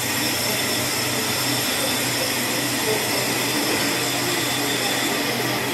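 Steady din of lathes and machine motors running in a brake-disc machining workshop: a constant low hum and a faint high whine over an even mechanical hiss, without a break.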